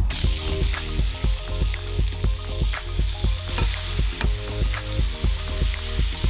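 Sliced beef sizzling in hot vegetable oil in a frying pan, the sizzle starting suddenly just after the start as the meat goes in. Background music with a steady beat runs underneath.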